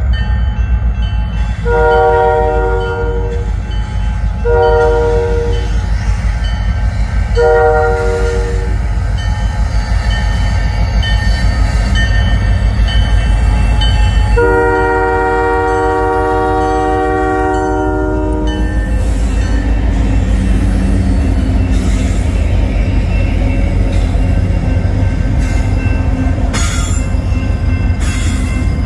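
CN freight train's diesel locomotives running by with a steady heavy rumble while the multi-tone air horn sounds four blasts, three shorter ones and a last long one, the pattern used for a grade crossing. After the horn, the engines and wheels rumble on as the train passes close by.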